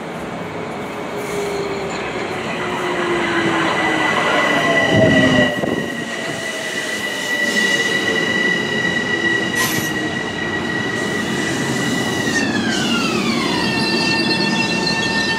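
Metro-North M7A electric multiple-unit train pulling in and slowing. A falling motor whine comes first, then a high steady electric whine that glides down in pitch about thirteen seconds in.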